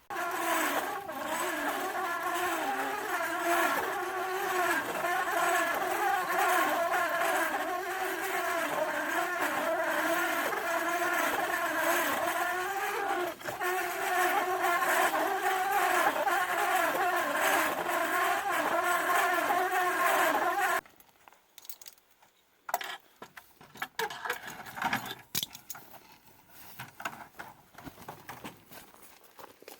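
A machine's motor running with a high, wavering whine, then cutting off suddenly about twenty seconds in. Faint clicks and scrapes follow.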